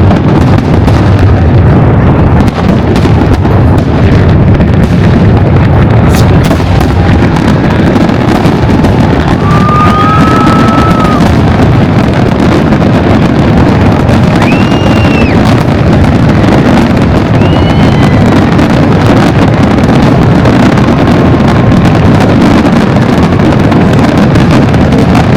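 Fireworks going off in a dense, continuous barrage of booms and crackles, loud throughout. A few thin whistles rise and fall over it, around the middle.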